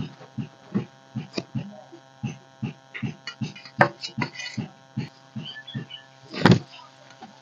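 Fingers mixing rice and jackfruit curry on a steel plate: a quick run of short wet squelches and taps, about three a second, with one louder one near the end. A steady electrical hum sounds underneath.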